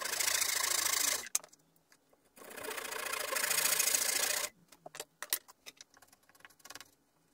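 Hand saw cutting through timber in two spells of sawing, the second longer, then a few light knocks and scrapes of wood.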